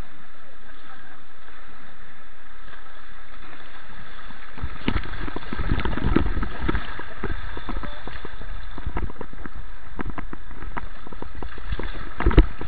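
Steady rush of river water on a helmet camera. About five seconds in it gives way to a jumble of low, muffled thumps and knocks as the kayaker capsizes and tumbles in the current, with one sharp knock near the end.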